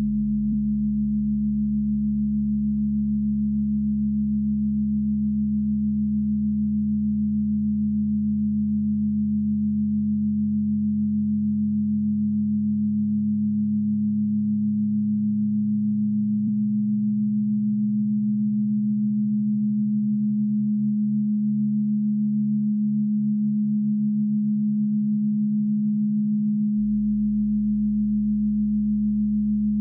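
Steady electronic drone of layered sine tones, a strong hum near 200 Hz over quieter lower tones. A lower tone shifts about halfway through and pulses in a fast wavering beat for several seconds before the low tones change again near the end.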